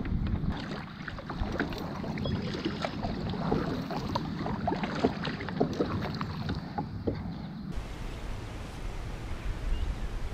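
Kayak paddle strokes in the water: repeated small splashes, drips and light knocks from the double-bladed paddle, over a low wind rumble on the microphone.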